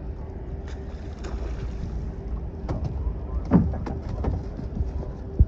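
Knocks and bumps as a small sturgeon is lifted out of the water into an aluminium sled boat, the loudest a sharp thump near the end. Under it runs a steady low rumble with a faint steady hum.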